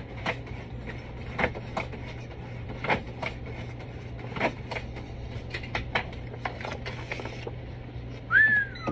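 Scattered sharp clicks and knocks over a steady low hum. Near the end comes the loudest sound, a short whistle-like note that rises and then falls.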